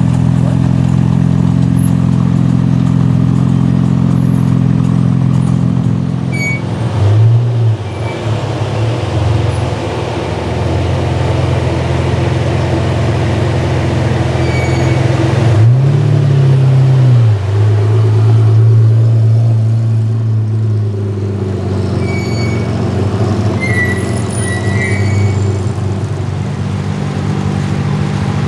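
A car engine idling with a steady low drone, blipped twice: each short rev rises in pitch and falls back to idle over about a second and a half, once about a quarter of the way in and again just past halfway.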